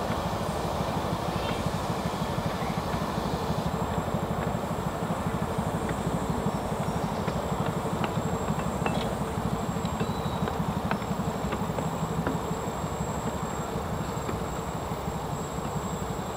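A 7¼-inch gauge miniature locomotive carrying its driver runs along the track and passes close by, with a rapid, steady beat and a few sharp clicks.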